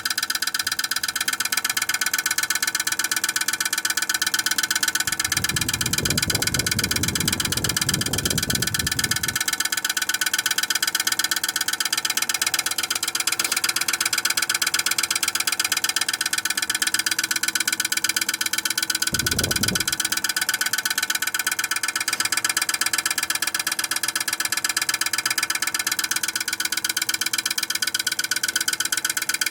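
Viessmann Vitocal 151-A heat pump running with a loud, steady, fast-pulsing mechanical buzz. The owner puts this down to ice building up on the unit despite heat tape. Two low rumbles come in, one lasting several seconds about a quarter of the way in and a brief one past the middle.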